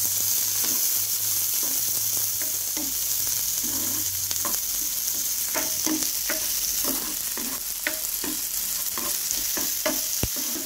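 Chopped onions sizzling in hot oil in a pan while being stirred, with short scrapes and taps against the pan that come more often in the second half.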